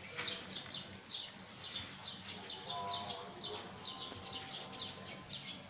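Small birds chirping: quick, high chirps repeated several times a second.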